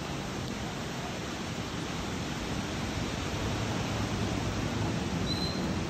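Steady rushing outdoor noise, with a brief high chirp near the end.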